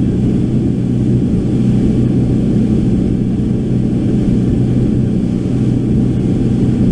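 Boat engine running at a steady speed with the boat underway, its even low drone mixed with wind and water rush.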